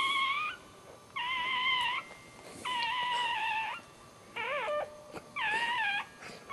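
Newborn dachshund puppy crying: a run of repeated high, wavering squeals, each under about a second, with short gaps between them.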